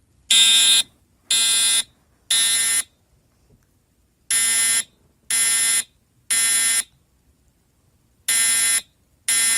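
Building fire alarm sounding the temporal-three evacuation signal under test: buzzy half-second blasts in groups of three, one a second, each group followed by a pause of about a second and a half.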